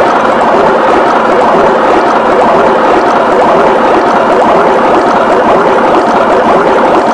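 Well over a hundred overlapping copies of a cartoon clip's soundtrack stacked on top of each other, merging into one loud, steady, dense wash of sound with no distinct words or notes.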